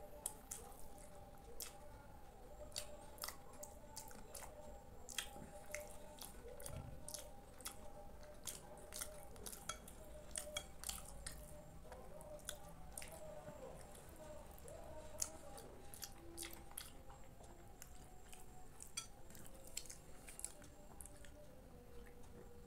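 Close-up eating of kheer, a soft milky rice pudding: faint wet chewing and mouth clicks, with the occasional clink of a metal spoon against a glass bowl.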